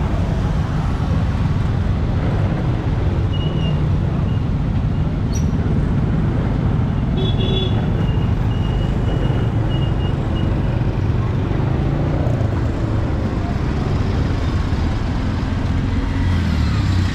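Street traffic with engines running close by, a steady low rumble. Short high horn toots sound once about three seconds in and then as a string of quick toots from about seven to ten seconds in.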